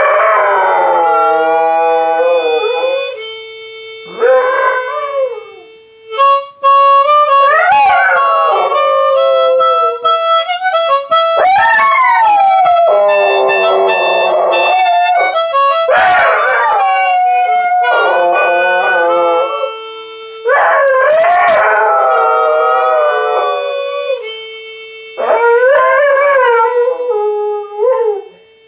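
A dog howling along to harmonica: long wavering howls that rise and fall come in repeated bouts over held harmonica notes and chords. Both stop near the end.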